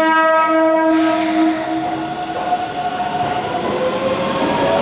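Horn of a Keihan 9000 series semi-express train sounding a steady tone that cuts off about a second in. The train then runs alongside the platform with wheel noise and a whine that rises slowly in pitch.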